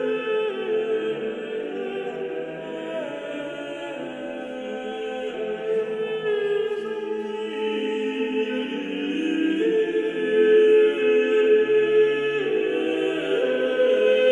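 Background music of voices singing together in slow, long-held notes that change pitch every second or two.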